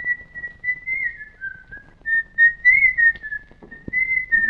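A person whistling a tune, one clear high note sliding up and down from note to note with short breaks between phrases.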